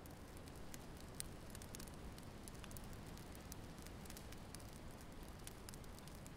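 Faint wood fire crackling: scattered, irregular sharp pops and snaps over a low rumble.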